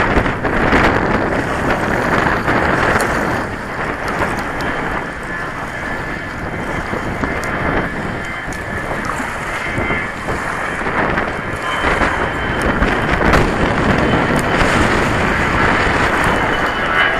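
Strong wind buffeting the camera microphone in a dense, steady rumble, with choppy water slapping against a plastic fishing kayak.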